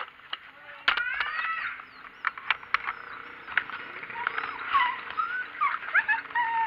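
Dogs yelping and whining: many short, high calls that rise and fall, thickest in the second half, mixed with sharp clicks and knocks.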